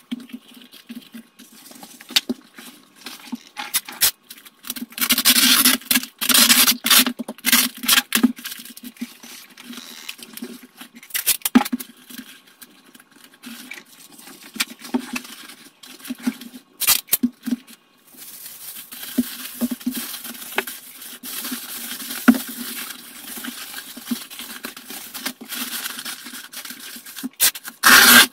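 Paper and aluminium foil being handled and wrapped around small containers: rustling and crinkling in quick irregular bursts, turning into a continuous crinkle for the last ten seconds or so as the foil is pressed around the package.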